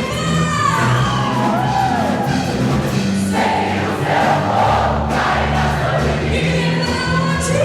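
Music with a group of voices singing together over steady bass notes.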